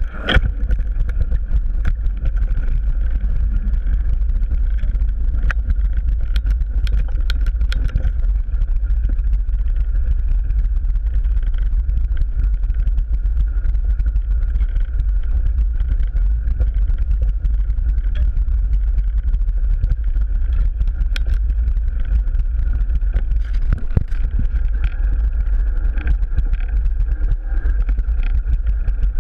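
Wind rumble buffeting a bike-mounted camera microphone, mixed with the rattle and scattered knocks and clicks of a mountain bike rolling fast over a rough dirt trail.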